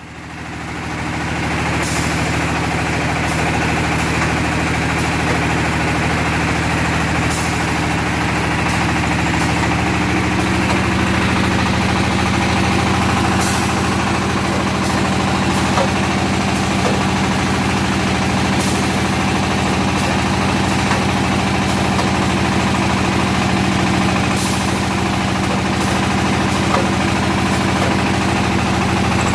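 Automatic red-brick molding machine running under test, with a steady low mechanical drone. Short high hisses or clicks come at irregular intervals.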